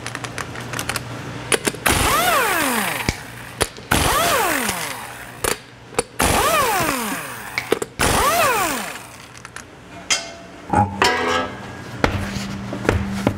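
Impact wrench spinning lug nuts off a wheel in four short runs about two seconds apart. Each run ends in a whine falling in pitch as the tool winds down after the trigger is let go. Some clattering follows near the end.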